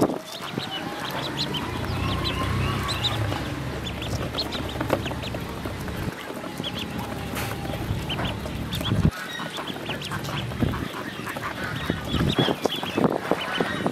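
A flock of ducklings peeping continually in short, high calls as they feed. A low rumble runs underneath for most of the first two-thirds and cuts off suddenly about nine seconds in.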